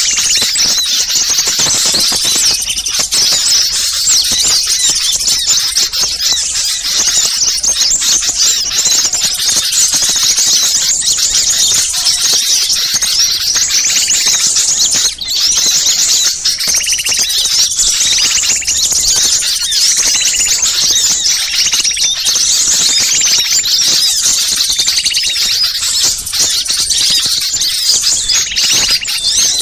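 Dense, unbroken chorus of high-pitched chirps and twitters from many small birds calling at once: a bird-lure recording of agitated small birds used to draw wild birds in.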